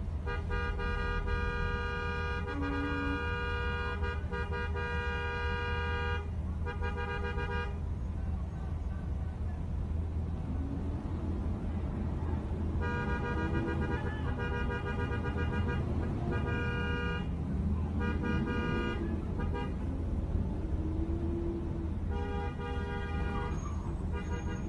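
A car horn sounding at a stopped street scene. It is held for about six seconds at first, then gives a short honk. From about halfway there is a run of several honks of a second or two each, and one more near the end. Faint shouting voices come between the honks, over a steady low traffic rumble.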